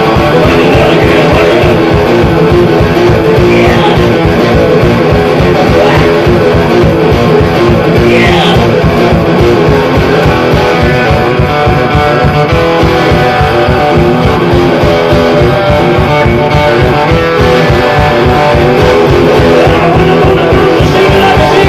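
Electric guitar played loud through an amplifier in a live rock-and-roll performance, driving a fast riff over a steady low beat of about four pulses a second.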